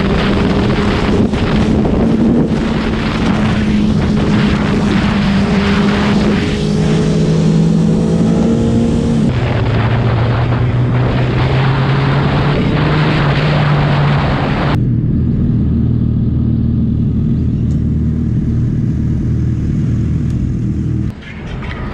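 Suzuki Hayabusa's inline-four engine running under way at a steady pitch, with heavy wind rush on the microphone; about nine seconds in the engine note drops lower. About two-thirds through, the wind rush stops abruptly and the engine goes on at a low, steady note.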